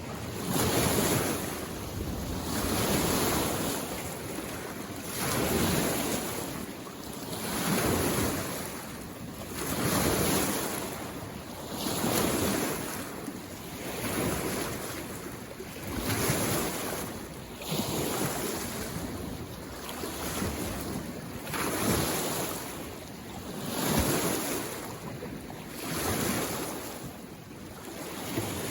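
Small lake waves breaking and washing onto the shore, one surge about every two seconds in a steady rhythm.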